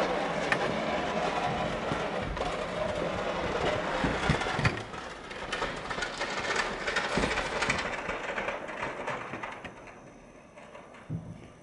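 Pickup truck running with a Fisher 8.5' HD plow blade pushing snow along a driveway: a noisy scraping rumble with scattered clicks. It fades steadily over the last few seconds as the truck moves off.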